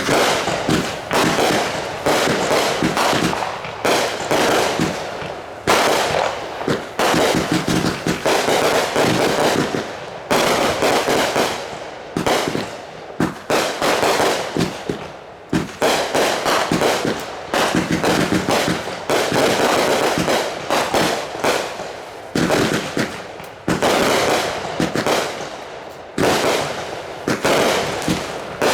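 Consumer fireworks going off in a rapid, nearly continuous barrage of bangs and crackling, with short lulls every few seconds.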